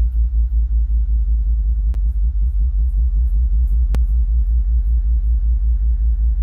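A sound system playing a bass-heavy track at high volume. A deep, pulsing bass line swamps everything else, with only faint higher parts of the music above it. A sharp crack cuts through about every two seconds.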